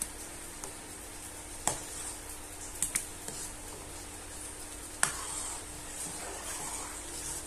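A metal ladle stirring thick tapioca-and-durian batter in a bowl: a soft, wet swishing with a few sharp clicks as the ladle knocks against the bowl, about four in all.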